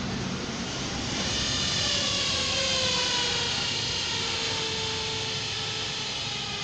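A steady mechanical drone with a whining tone whose pitch slowly falls over several seconds.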